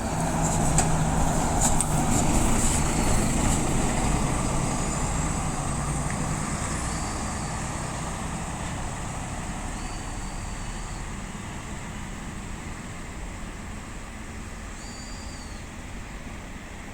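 A BRT bus passing on its dedicated busway through a level crossing: engine and tyre noise loudest in the first few seconds, with a few clicks as it goes over, then fading steadily as it moves away.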